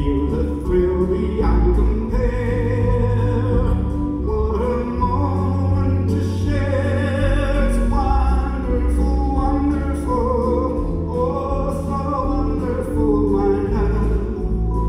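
Male singer singing live into a microphone with a backing band, heard from the audience in the concert hall.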